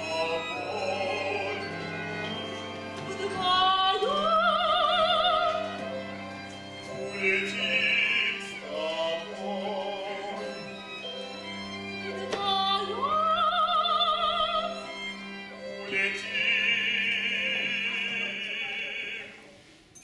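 Operatic soprano singing with wide vibrato, swooping up into long held high notes several times, over sustained low notes from a small live instrumental ensemble.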